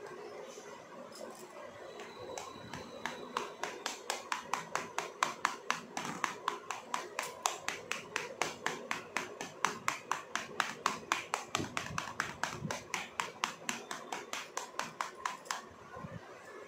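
A kitchen knife pricks holes in pizza dough spread on a steel plate. The tip taps the metal in a fast, even run of ticks, about four a second, starting about three seconds in and stopping near the end.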